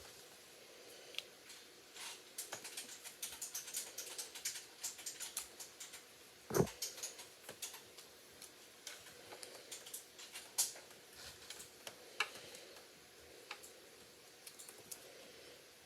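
A knife cutting and scraping a bar of soap: a run of crisp little clicks and crackles as the blade bites and shavings break off, with one louder knock about six and a half seconds in.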